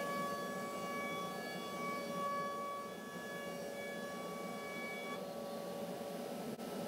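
Felder Format4 Profit H08 CNC router running: a steady high machine whine over a steady hiss, the whine cutting off about five seconds in.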